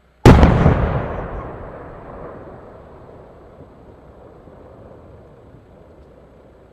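Large aerial firework shell bursting: one loud bang about a quarter second in, then a long echo that slowly fades away over several seconds.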